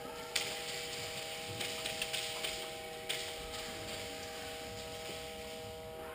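Steady electrical hum with a few sharp clicks and snaps: one about half a second in, a quick cluster between about one and a half and two and a half seconds in, and another just after three seconds.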